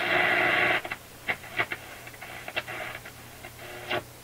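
Marconi 201A tube radio's speaker giving out a loud burst of buzzing static for about a second. A few sharp clicks and softer crackle follow as the band switch is turned from shortwave to AM.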